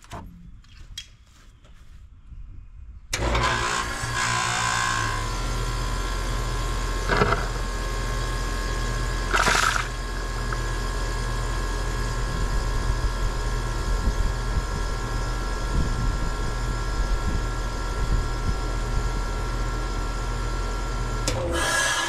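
A machine starts abruptly about three seconds in and runs steadily, with a low hum and a steady whine, and two short bursts of noise about seven and nine and a half seconds in.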